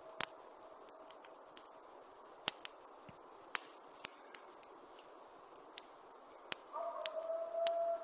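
Long, steady wolf howls held at one pitch: one fades out about a second and a half in, and another starts sharply near the end. They are wolves answering a human howl. Crackles and sharp pops from the wood fire in the barbecue run throughout.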